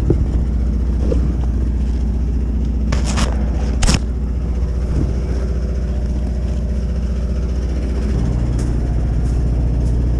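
An engine running steadily with a low drone, its note shifting about eight seconds in, with a couple of short clanks around three and four seconds.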